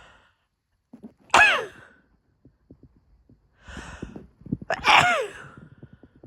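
A woman sneezing twice, about three and a half seconds apart. Each sneeze is voiced, with a pitch that falls away. Before the second sneeze come hitching in-breaths as it builds.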